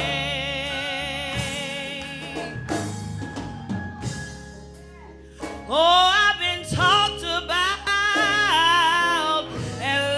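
Gospel song: a female soloist holds a long note with heavy vibrato, then drops out for a few seconds of quieter band accompaniment with drums. About halfway through she comes back in loud with sliding, ornamented vocal runs.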